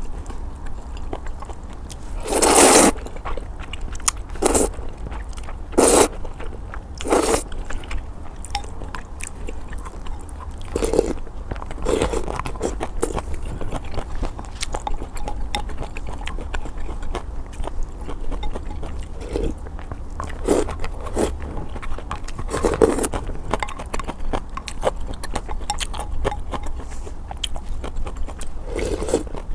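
Close-miked eating of luosifen (river-snail rice noodles): chewing and crunching, with louder slurps of the noodles every few seconds, the loudest about two seconds in.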